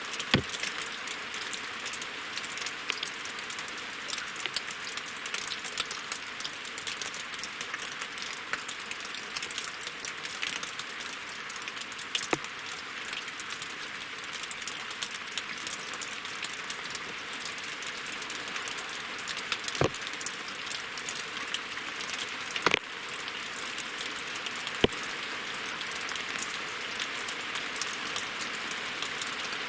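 Steady winter rain falling on a lake and on wooden logs: a dense, even hiss of drops, with a handful of louder single drops striking sharply every few seconds.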